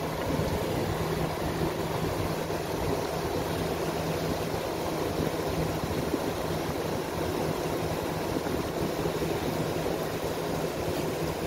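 Steady low hum with an even rushing noise over it, unchanging throughout: the sound of a running machine such as a fan.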